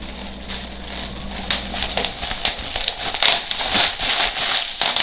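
Plastic bag and bubble wrap crinkling and crackling as hands unwrap packed parts, with many short sharp crackles that grow louder about halfway through.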